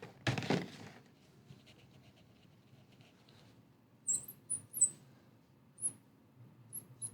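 Marker writing on a whiteboard: a scratchy stroke near the start, then quick strokes with short, high squeaks from about four seconds in.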